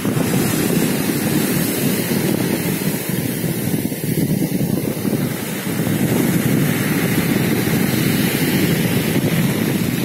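Stormy sea surf breaking and splashing against the concrete blocks of a pier, with foaming wash over a pebble beach. Strong wind rumbles steadily on the microphone.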